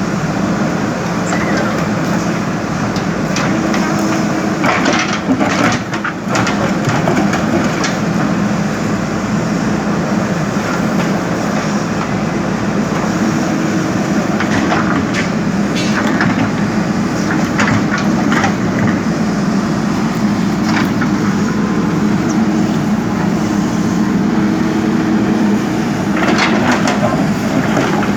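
JCB backhoe loader's diesel engine running steadily under load, with bursts of cracking and crunching as the bucket breaks up the old bridge, several times.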